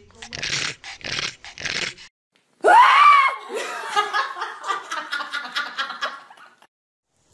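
A few short hissy hits, then about two and a half seconds in a loud, high-pitched squeal that rises and falls, running into quick giggling laughter that fades out.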